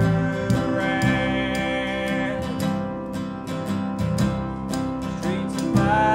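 Acoustic country-folk band playing an instrumental passage: plucked upright bass and strummed guitar over a steady clicking rhythm, with a lead instrument holding one long note about a second in.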